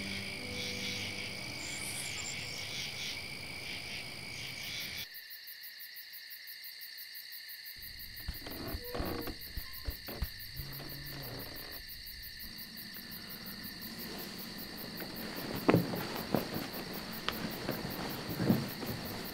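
Steady night chorus of frogs and insects chirring, with low music underneath that cuts out about five seconds in. From about eight seconds on, soft rustling and a few sharp knocks, the loudest two near the end.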